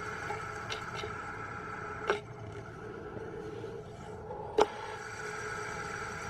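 Fidget spinner knocked about by a cat: two sharp clacks about two and a half seconds apart, the second louder, over a steady hum.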